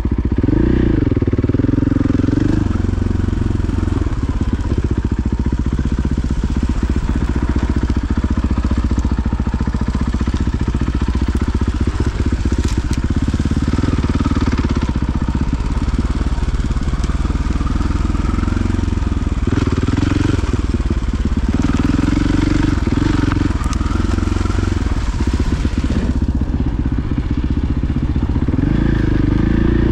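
KTM 500 EXC-F dirt bike's single-cylinder four-stroke engine being ridden on a trail, its revs rising and falling repeatedly with the throttle.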